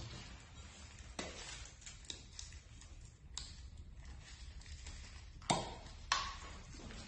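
Scattered light clinks and taps of kitchenware against a bowl while sugar is added to shredded purple cabbage; the loudest knock comes about five and a half seconds in, and one clink about six seconds in rings briefly.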